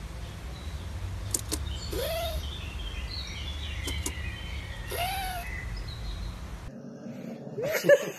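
Short rising-and-falling animal calls about every three seconds over a steady low rumble, with faint bird chirps. After a sudden cut near the end, dogs yip and bark.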